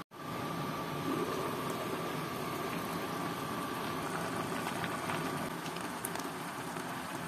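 Chicken, potato and carrot stew in tomato broth simmering in a frying pan, a steady bubbling hiss. A few light clicks come about four to six seconds in, as the stainless lid is lifted off the pan.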